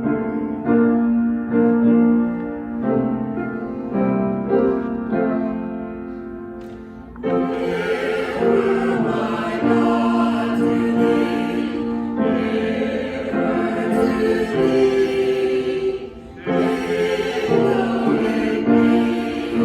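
Choral music: a keyboard opening with separate ringing notes, then from about seven seconds in a choir singing with accompaniment.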